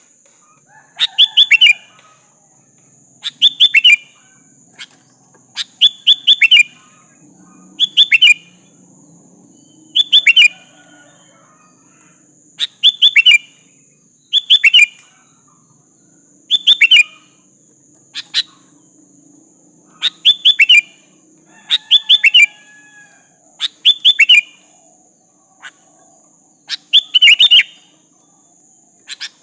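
Sooty-headed bulbul calling over and over in short bursts of quick, bright notes, one burst about every two seconds.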